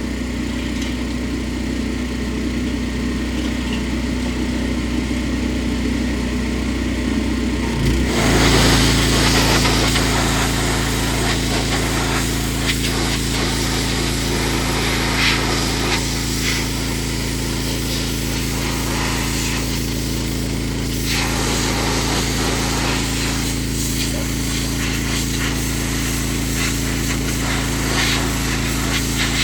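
Gas-engine pressure washer running steadily. About eight seconds in, the engine note changes and the hiss of the water jet starts and keeps going as the washer sprays under load.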